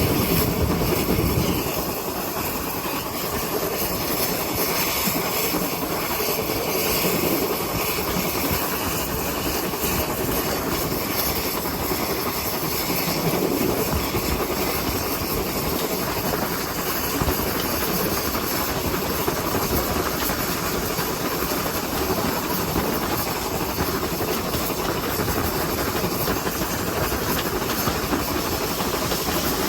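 Pannier tank steam locomotive 7714, a GWR 57xx class engine, on the move: a steady rush of running noise with steam hiss.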